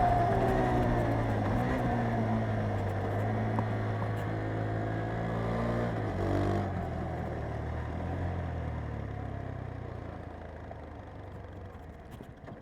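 KTM 390 Adventure's single-cylinder engine winding down as the bike slows, its pitch falling steadily, with a short blip of revs about six seconds in. The lower engine note then fades away.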